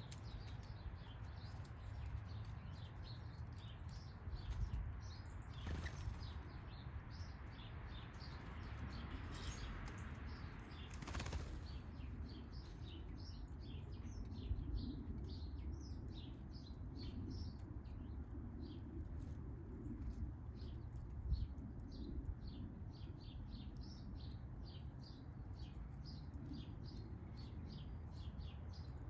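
Backyard birds at a feeder: a rapid series of short, high chirps, busier in the second half, with brief wing flutters, over a steady low outdoor rumble.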